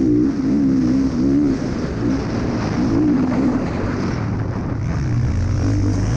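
KTM motocross bike engine heard from on board under race riding, its pitch rising and falling as the rider works the throttle and gears, then easing lower as the bike slows into a turn. Wind rushes on the microphone throughout.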